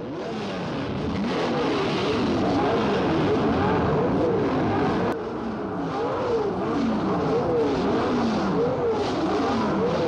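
Several race car engines revving together, throttles blipped up and down over and over so that their pitches rise and fall across one another.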